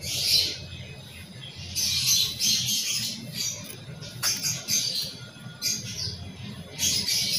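Scissors snipping through fabric in a series of short cuts at an irregular pace, with one sharp click about halfway through.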